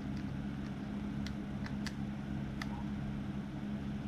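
Steady low hum of a room appliance, with about four faint, light clicks of small metal parts or a screwdriver being handled during reel disassembly.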